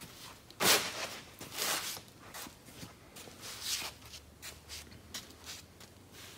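Soft scuffing and rustling noises, several short ones about a second apart, the loudest just under a second in.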